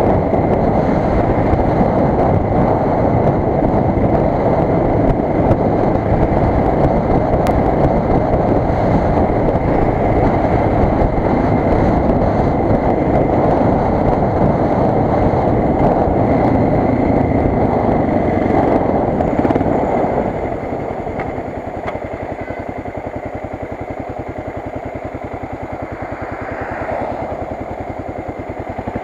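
Suzuki DR 600's air-cooled single-cylinder four-stroke engine running under way with steady wind rush. About twenty seconds in the level drops and the engine's separate firing beats come through clearly, then it picks up again near the end.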